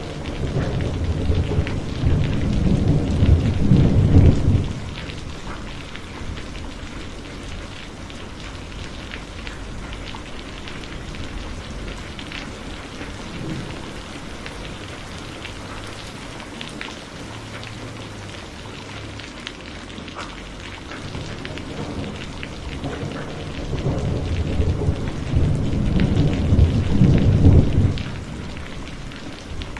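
Heavy rain falling steadily, with two long rolls of thunder: one at the start lasting about four seconds, and a second building and fading near the end.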